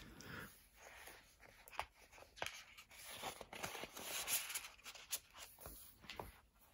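Faint rustling of paper as book pages and loose paper inserts are handled, with scattered soft clicks and a few brief swells of rustle.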